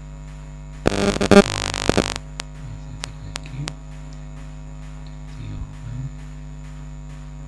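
Steady electrical mains hum, with a loud rustle of a loose sheet of paper being handled about a second in, followed by a few light clicks.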